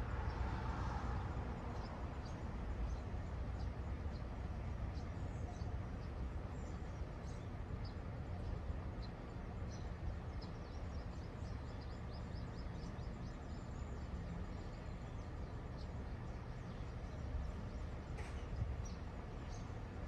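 Small birds giving many short, high chirps over a steady low outdoor rumble.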